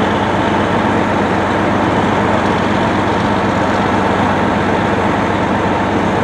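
A large engine running steadily, a constant loud drone with a steady hum.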